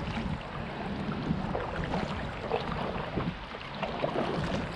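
Kayak paddle strokes and water splashing and lapping against a plastic kayak hull as it moves down a shallow river.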